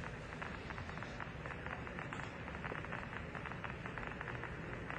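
Steady hiss with dense crackling of old archival broadcast audio: the noise floor of a 1969 television recording, with no speech.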